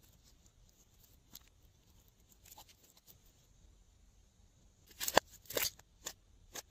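Glossy slime handled by fingers: soft sticky clicks, then a cluster of loud crackling pops about five seconds in as it is folded and pressed, and two smaller pops near the end.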